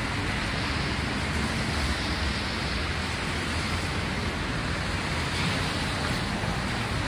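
Steady city street noise: an even rush with no distinct events, typical of traffic on a wet street.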